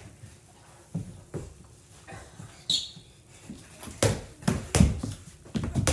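A small basketball bouncing and feet thudding on a hardwood floor: a run of irregular thuds, heaviest in a quick cluster about four seconds in, with a brief high squeak partway through.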